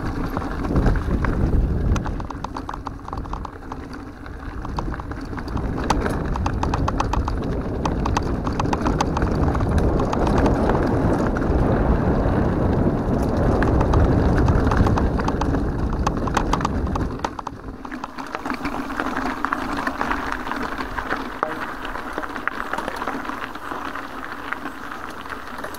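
Mountain bike rolling over a rough gravel track: a constant rattle and clatter of stones and the bike's parts, heard through a handlebar-mounted camera. A heavy low rumble runs under it and drops away about two-thirds of the way through.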